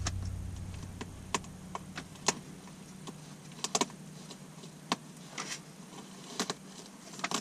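Irregular small clicks and taps of switches and buttons in a pickup truck's cab being pressed and handled, about a dozen over several seconds, over a faint steady hum.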